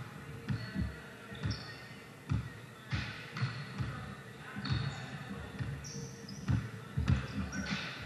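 Basketball bouncing on a gym floor in uneven dribbles, with sneakers squeaking on the court several times.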